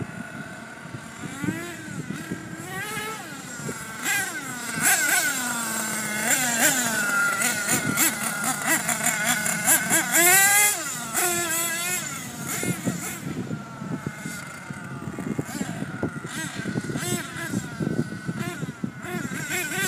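Small two-stroke engine of a nitro/gas RC truck running at high revs, its whine rising and falling again and again as the throttle is worked. It is loudest about halfway through.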